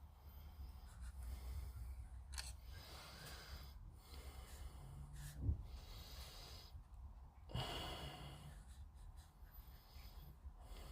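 Faint handling sounds of masking tape and small plastic kit parts: light rustles, a soft knock about halfway through, and a short rasp a couple of seconds later.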